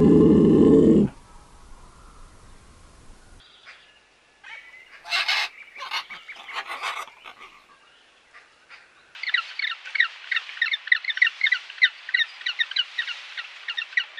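A leopard snarls loudly for about a second at the start. Around five to seven seconds in come a few harsh squawks from blue-and-yellow macaws. From about nine seconds in, an emperor penguin colony calls: a dense chorus of rapid, high, repeated calls.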